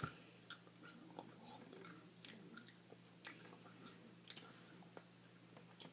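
Faint chewing of a jelly bean, with scattered soft clicks from the mouth.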